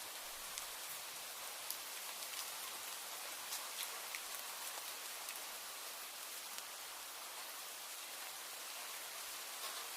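Steady rain: an even hiss of falling rain with scattered sharper drips and ticks of drops landing close by.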